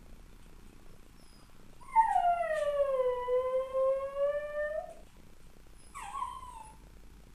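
A dog howling: one long howl of about three seconds that slides down in pitch and turns slightly up at its end, followed a second later by a short, falling whine.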